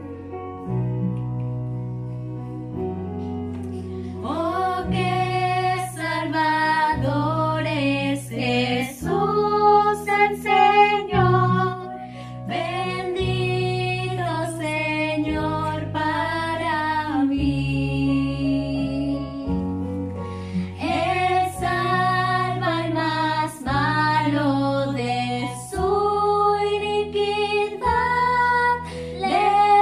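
Girls' voices singing a Spanish-language Christian hymn together over a steady instrumental accompaniment. The accompaniment plays alone at first, and the voices come in about four seconds in.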